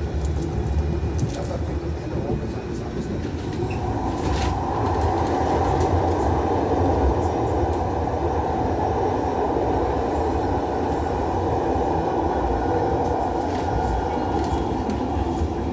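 Manchester Metrolink tram running along the line, heard from inside the passenger car: a steady rumble of wheels on rail with scattered light clicks, the rolling noise growing louder about four seconds in.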